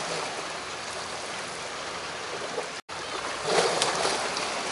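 Sea water washing against the shore rocks, a steady wash that swells for a moment about three and a half seconds in. The sound cuts out completely for an instant a little under three seconds in.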